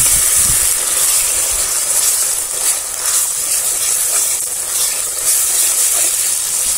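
Wet ground masala paste sizzling loudly in hot oil with fried onions in a wide metal kadhai, a flat spatula stirring and scraping through it. The steady hiss is the sound of the masala frying in the tempering oil.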